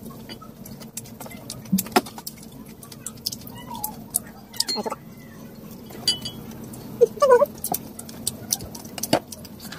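Sounds of eating at a table: scattered clicks and knocks of dishes and a plastic soda bottle being handled, over a faint steady hum. A short wavering, cry-like sound comes about seven seconds in.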